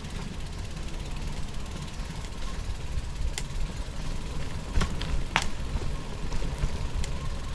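Wind rumbling on the microphone of a camera riding along on a moving bicycle, with four sharp clicks or rattles over the last few seconds.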